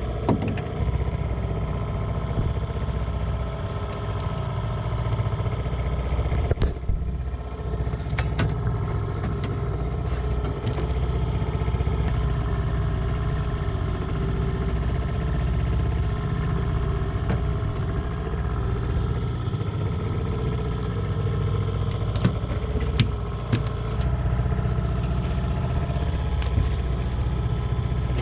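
Boat engine running steadily as a low, even hum, with a few short knocks and clicks.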